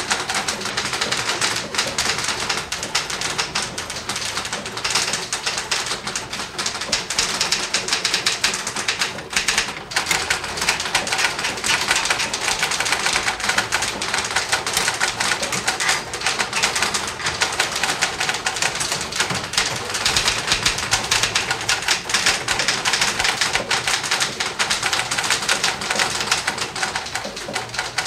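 Six office typewriters typing at once: a dense, continuous clatter of overlapping keystrokes, with a brief lull about ten seconds in.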